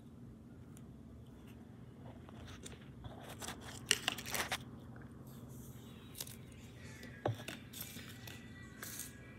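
Yellow-green slime squeezed and stretched by hand, giving a cluster of wet crackles and pops about four seconds in, with a few single sharp clicks later, over a low steady hum.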